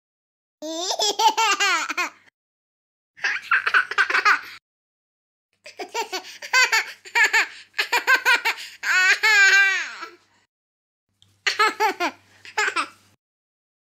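High-pitched laughter in four bursts of quick repeated ha-ha pulses, separated by silent gaps.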